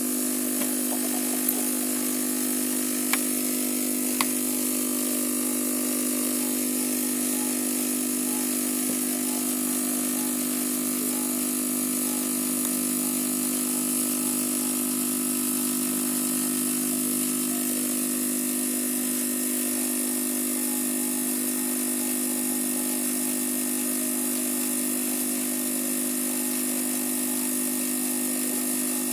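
Steady whir of a small electric fan motor on the repair bench, running at an even speed, with a few faint clicks in the first few seconds.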